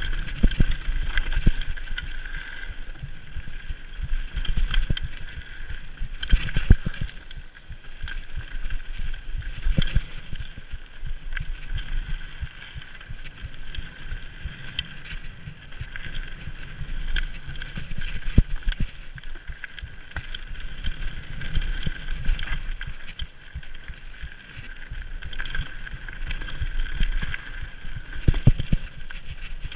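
Mountain bike riding fast down a loose gravel trail: tyres crunching and rumbling over stones, with frequent knocks and rattles from the bike over bumps.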